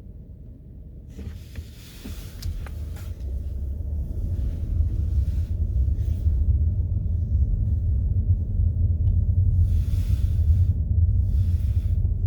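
Wind buffeting the microphone: a low rumble that grows louder about two seconds in, with several brief hissing gusts.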